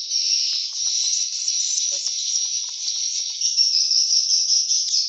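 Swiftlets twittering, a dense, high, continuous chatter with no break.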